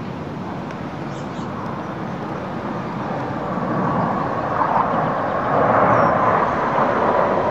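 Jet roar from a formation of four US Navy F/A-18 Hornets, twin-engine jets, flying overhead. The roar swells steadily louder over the second half as the formation approaches.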